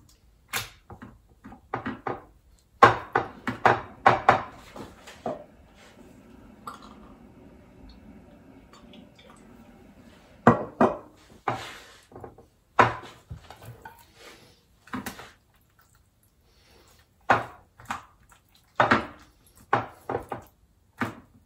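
Irregular clinks and knocks of kitchenware being handled: a glass baking dish and an oil bottle moved and set down on a stone countertop, in several clusters with short quiet gaps.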